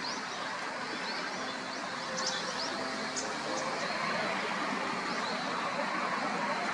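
Shallow stream running over stones, a steady rushing hiss, with brief high bird chirps scattered through it.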